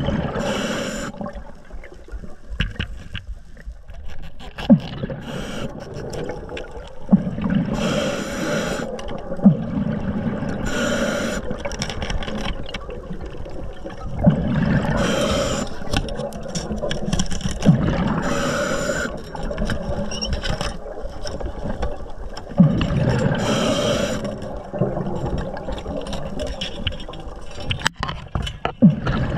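A diver breathing underwater: a hissing breath with bubbling about every three seconds, with a few sharp clicks in between.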